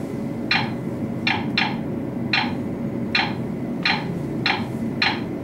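Key presses on an Ag Leader Integra display's touchscreen keyboard: eight short clicks at an uneven typing pace, one per character entered, over a steady low hum.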